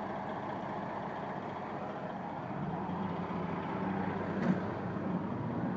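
Heavy road-construction machinery running steadily during hot-mix asphalt paving. An engine hum comes up about halfway through, with a single short knock a little later.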